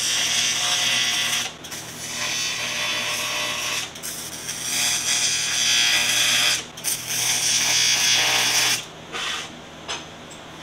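TIG welding arc on 3/16-inch aluminum diamond plate, buzzing and hissing in four short tacking runs of about two seconds each with brief breaks between them. It stops about nine seconds in.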